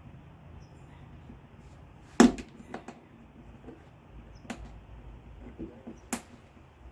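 Sharp clicks of a tool prying at a window weatherstrip's retaining clip: a loud click about two seconds in, a few lighter ones just after, and single clicks later on.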